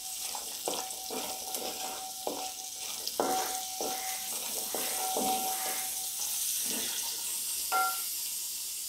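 Shallots, garlic and ginger sizzling in coconut oil in a wide metal uruli, stirred with a wooden spatula in irregular scraping strokes. A steady ringing tone comes and goes with the strokes, the sound of the uruli itself. Near the end comes one louder knock that rings.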